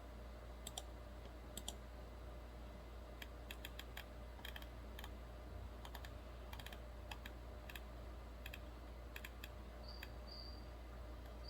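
Light clicking on a computer keyboard, in scattered single clicks and short quick runs of taps. Near the end a cricket starts chirping, in short high repeated chirps.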